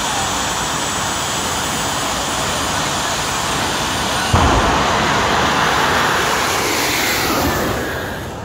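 Jet dragster's jet engine running loud at the start line with a high whine, then about four seconds in a sudden bang and a louder roar as the afterburner lights and the car launches. The roar fades near the end as the car runs away down the track.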